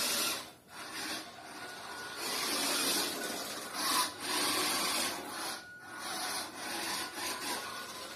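Toy-grade QD radio-controlled touring car driving and turning on a tiled floor: its small electric motor and tyres on the tile make a rasping noise that swells and fades as it speeds up, slows and turns.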